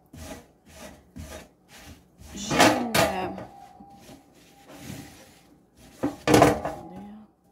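Hand scrubbing a wire oven rack with a scouring pad: short rubbing strokes about two a second. Two louder metallic scrapes, about two and a half and six seconds in, each leave the rack ringing briefly.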